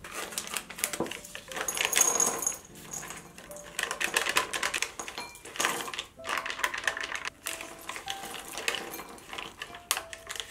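A snack packet crinkling as it is torn open, then mixed nuts poured from the packets, rattling and clinking into a small glass bowl in a quick run of small clicks.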